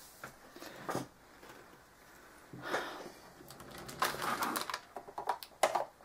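Small craft supplies being handled and set down on a work table: a short clatter about a second in, a rattle around three seconds in, then a louder run of clicks and knocks in the last two seconds.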